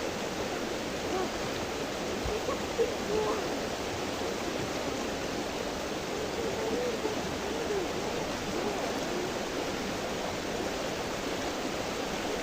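The Steyr river's water rushing steadily, an even unbroken wash of noise.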